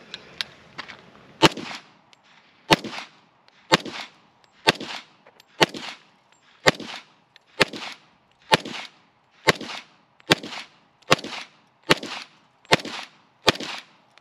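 FN FNX-45 pistol firing .45 ACP rounds, about fourteen single shots at a steady pace of roughly one a second, slightly quicker near the end, each with a short echo. A few light clicks come before the first shot.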